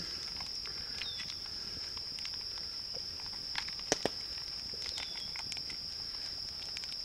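A steady, high-pitched insect chorus drones throughout. Over it come faint crinkles and clicks of a plastic zip-top bag being squeezed by hand, with a few sharper ticks about four seconds in.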